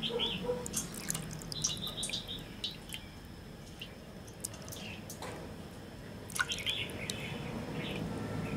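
Water dripping and small wet splashes into a steel basin as hands rinse and peel the membrane off a raw pig brain, in short irregular clicks. Birds chirp in short clusters in the background.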